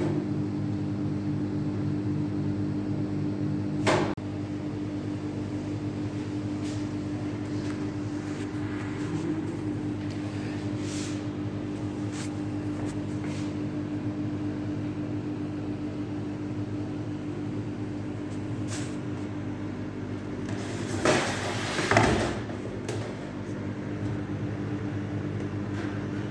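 Microwave oven running while it warms food, a steady hum. A sharp click comes about four seconds in, and two louder knocks or clatters come near the end.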